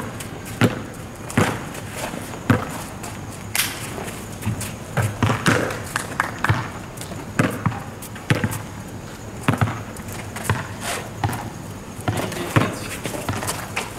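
Rubber basketball bouncing on an asphalt court: irregular dribbles and thuds of the ball during play.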